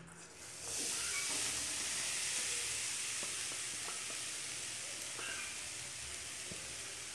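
Grated khoya (mawa) sizzling as it is scraped into a hot, dry kadai. A steady hiss starts about half a second in and slowly fades, with a few faint taps from the hand and bowl.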